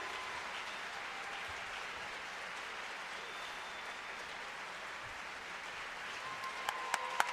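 Audience applause, steady, with scattered whistles and cheers; near the end, sharper, closer claps come in as the applause grows.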